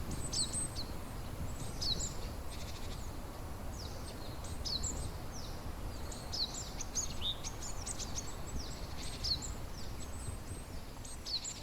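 Small birds chirping: many short, quick, high chirps, often several in close succession, over a steady low rumble.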